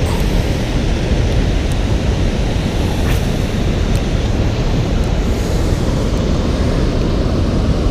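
Wind buffeting the camera microphone: a steady, loud, low rushing rumble, with a couple of faint clicks in the middle.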